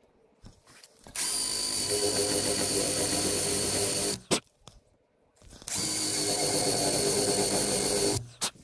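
Electric drill boring holes into a wooden ceiling molding, chips spraying from the bit. It runs twice for about three seconds each time with a steady motor whine, and a sharp click follows each run.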